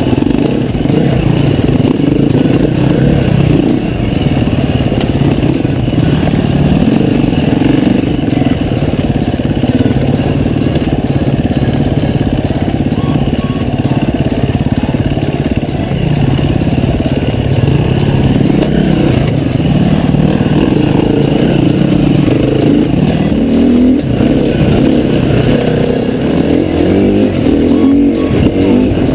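Enduro dirt bike's single-cylinder engine running hard off-road, its revs rising and falling continuously as the rider works the throttle through the terrain.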